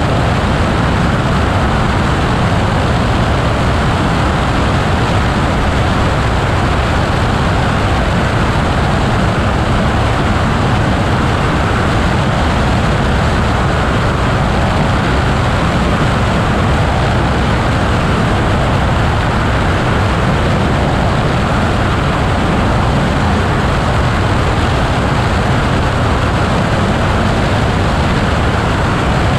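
Steady in-flight noise of a motorglider, a constant drone and rush that does not change.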